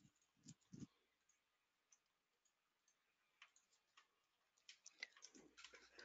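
Near silence with a few faint, scattered clicks from a computer mouse and keyboard.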